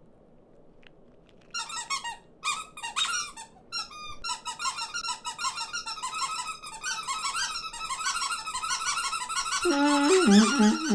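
Squeaky chatter of a flock of cartoon birds: after a quiet second or so, rapid high squeaks start and build into dense, overlapping chatter, and a lower, gliding cry joins near the end.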